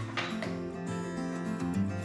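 Background music with guitar, steady held notes.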